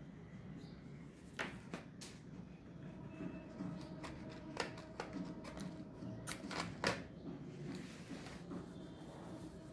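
Spiral sketchbook paper being shifted and turned on a table, with a handful of sharp taps and knocks, between strokes of a yellow oil pastel rubbing on the paper.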